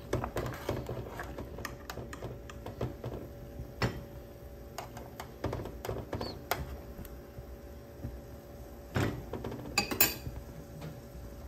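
Metal spoon clinking and scraping against an aluminium saucepan as boiled potatoes are scooped out of their cooking water: scattered light clinks, with a few louder knocks about four seconds in, past six seconds, and twice near the end, over a low steady rumble.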